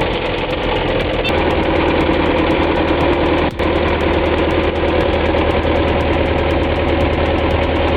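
Belarus MTZ-82 tractor's diesel engine running steadily under load as the tractor sits stuck in deep peat. The sound drops out for a moment about three and a half seconds in.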